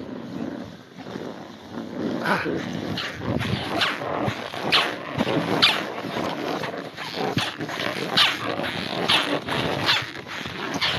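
Snowboard sliding over snow, with irregular scraping and swishing as the edges bite and skid.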